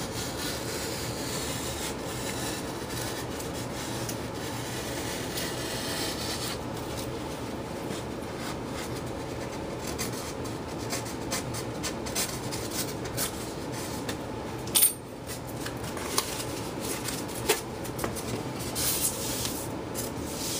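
A craft knife scraping and rubbing along foam board as it cuts a roughly 45-degree bevel for an elevon hinge. A steady scratchy rub for the first several seconds, then scattered light clicks and taps of handling, with one sharp knock about two-thirds of the way through.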